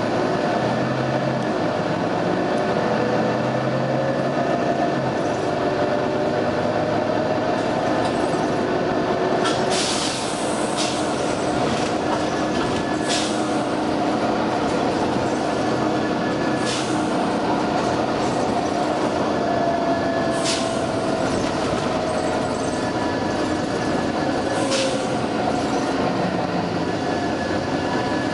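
Volvo B9TL double-decker bus running steadily, with a whine that rises and falls, broken about five times by short sharp hisses of compressed air from its air system.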